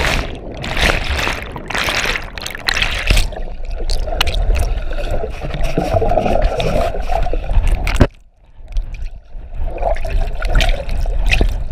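Splashing, then muffled rushing and gurgling water heard by a camera held underwater in a swimming pool. The sound drops away suddenly for a moment about eight seconds in.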